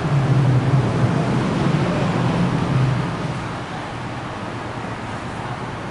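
A car running close by on a wet street, its low engine hum loudest for the first three seconds and then fading, over a steady hiss of rain and wet traffic.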